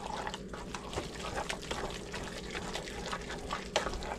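Chicken, broccoli and cheese sauce cooking in a pan, with irregular crackles and small pops from the food and a low steady hum underneath.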